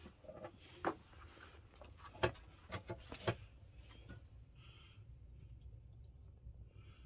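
A few sharp clicks and knocks in the first half, over a faint low hum.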